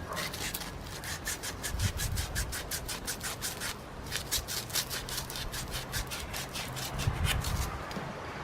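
Emery tape rubbed briskly back and forth around a 3/8 inch copper pipe, about four or five rasping strokes a second, cleaning the copper bright before fluxing and brazing. The rubbing pauses briefly about halfway and stops shortly before the end.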